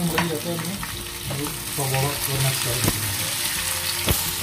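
Sliced onions frying in hot sunflower oil with a steady sizzle, while a wooden spatula stirs them and knocks sharply against the pan three times.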